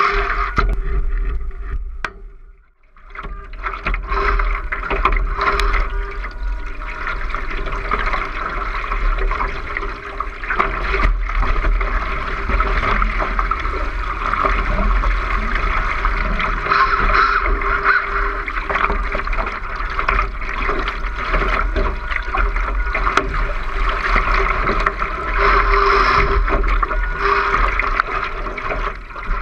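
Water rushing and splashing along the hull of a 2-meter radio-controlled ACC One Design model yacht under sail, heard through a deck-mounted GoPro. The sound drops away briefly about two and a half seconds in, then carries on steadily.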